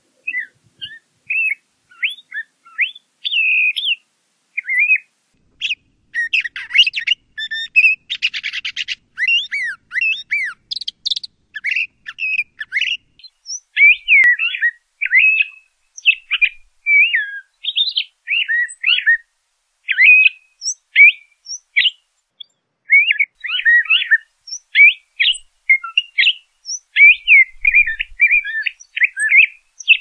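LeConte's thrasher singing: a long run of short, varied whistled notes and phrases with brief gaps between them. About eight seconds in there is a harsher, buzzy phrase.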